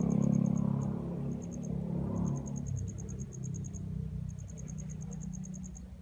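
A low motor drone, loudest about half a second in and slowly fading, with rapid trains of high, evenly spaced chirps over it.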